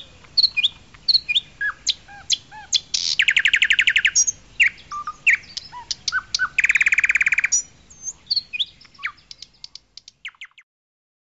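Birdsong: a string of short chirps and slurred whistles with two fast, even trills of about a second each, thinning out and stopping near the end.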